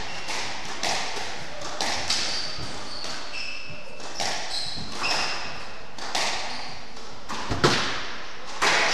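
Squash rally: the ball cracks off rackets and the walls about once a second, with a sharper, louder hit near the end, and short squeaks of court shoes on the wooden floor between the shots, in a reverberant court.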